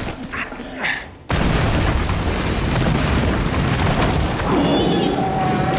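A sudden, loud explosion about a second in, after a quieter moment. Its rumble and blast noise carry on steadily to the end.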